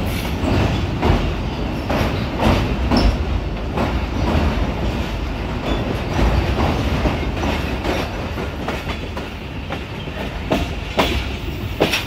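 Green Line Express passenger coaches' wheels running at speed on the track, a steady low rumble broken by quick, irregular clicks and clatter as they pass over rail joints and points. Heard from an open coach window, so the rumble is loud and close.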